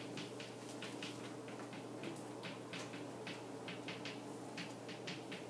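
Chalk tapping and scraping on a chalkboard as words are written: a faint, irregular run of short clicks, several a second, over a steady low room hum.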